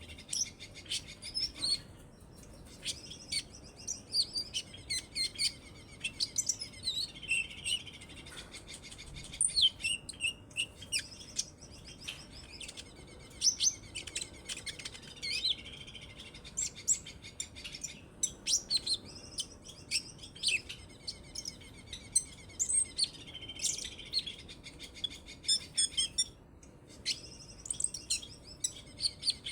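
Kolibri ninja (a sunbird) singing a long, fast run of high, sharp chirps and trills, broken by a few brief pauses.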